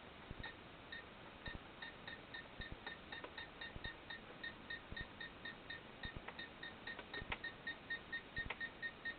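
Hubsan FPV transmitter beeping steadily, short electronic beeps about three a second, as it is set to find the FPV camera's video frequency, with a few faint clicks of handling among them.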